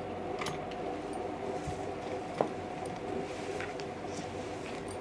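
Sewing machine running steadily, stitching a topstitch seam through the dress fabric, with faint rustles of the cloth being guided and one sharp click about two and a half seconds in.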